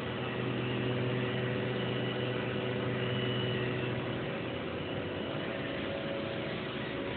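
CNC machining center running: a steady mechanical hum with several held whining tones. The low hum eases off about four seconds in.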